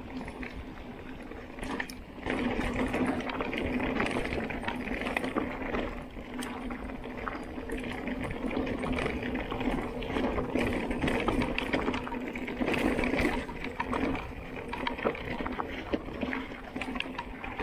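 Mountain bike rolling along a dirt forest trail: tyres crackling over dirt and gravel, with a steady buzz under it. The rolling gets louder about two seconds in.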